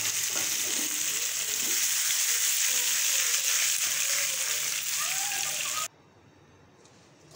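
Boiled potato cubes sizzling steadily in hot mustard oil with cumin seeds in a wok as they are tossed; the sizzle stops abruptly about six seconds in.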